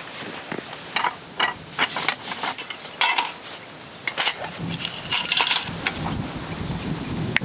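Metal frame parts of a camp table rack clinking and knocking as they are taken out of a carry case and set down on a wooden roll-top table, a string of sharp clicks and taps. Wind starts buffeting the microphone about six seconds in.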